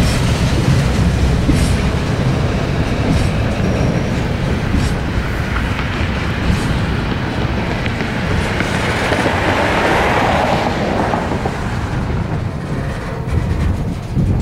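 Freight train cars rolling past: a steady rumble and rattle of steel wheels on rail, with scattered wheel clicks and a brief swell in the rattle about two-thirds of the way through.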